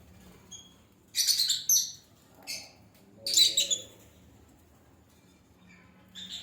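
Birds chirping in short flurries: a burst of high chirps about a second in, a brief chirp, then another burst about three seconds in.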